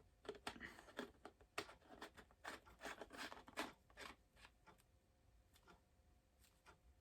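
Small plastic parts being handled by hand: a quick run of clicks and rustling for about four seconds, then only a few scattered clicks.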